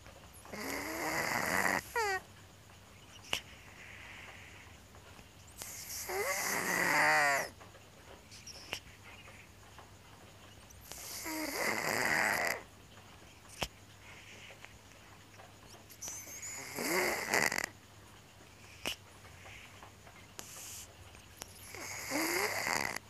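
Domestic cat snoring in its sleep: five loud snoring breaths about five seconds apart, each carrying a whistling tone that slides in pitch.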